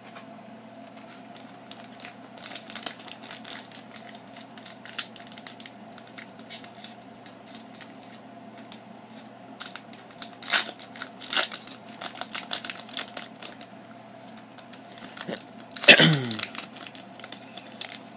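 Foil wrapper of a Pokémon card booster pack crinkling and tearing as it is opened by hand, in many irregular short crackles. About sixteen seconds in, a loud throat-clear with a falling pitch.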